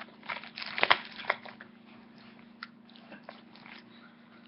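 Plastic shrink-wrap on a sealed trading-card booster box crinkling and crackling as fingers pick at it, trying to tear it open. A dense flurry of crackles peaks about a second in, then thins to scattered small crackles.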